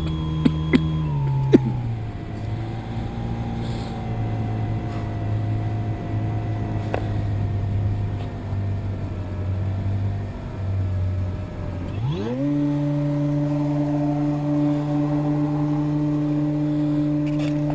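RC airplane's electric motor and propeller running at a steady pitch that drops as the throttle is pulled back in the first two seconds, runs lower for about ten seconds, then rises quickly to a higher steady pitch as the throttle is opened again. A few sharp clicks in the first two seconds.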